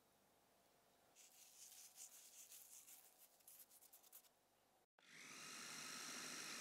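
Salt rubbed between fingers and sprinkled into a glass food-processor bowl, a run of faint grainy ticks. About five seconds in, the food processor's motor starts and runs steadily with a hiss and a few steady whining tones, blending the mixture. The motor is the loudest sound.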